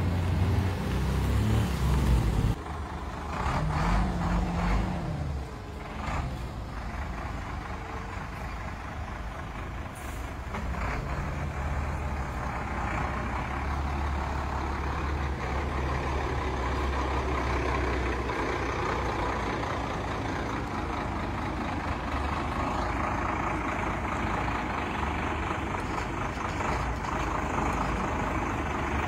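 A large cargo truck's engine running in a steady low rumble, louder and noisier over the first two or three seconds.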